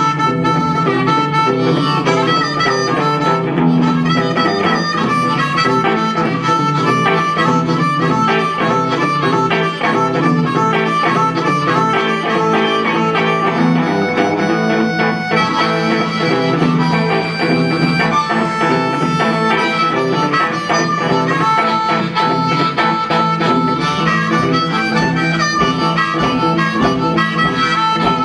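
Blues harmonica played into a microphone, carrying the lead over a semi-hollow electric guitar's accompaniment, with steady, unbroken playing throughout.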